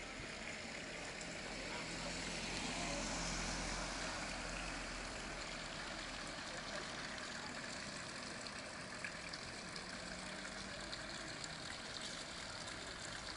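Motor vehicle engine running with a steady hum under a wash of outdoor noise, swelling about three seconds in and then easing off.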